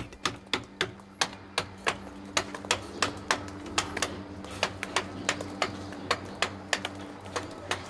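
Mallet striking a stone carver's chisel into stone, in quick even taps at about three to four a second, over a faint steady low hum.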